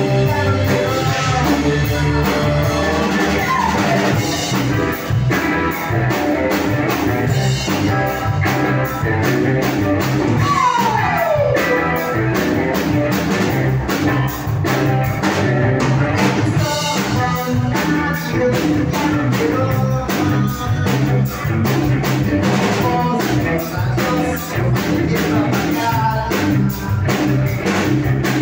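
Live rock band playing: electric guitars, drum kit and a singer's vocals together, with a long downward slide about eleven seconds in.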